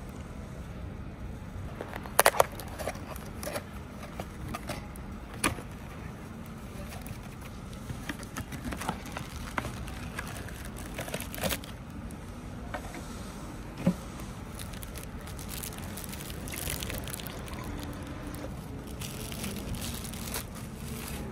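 A paperboard bakery box being opened and unfolded by hand, with sharp snaps and clicks of the card, the loudest about two seconds in, then the crackle of a plastic bag as a Danish pastry is drawn out. A steady low rumble runs underneath.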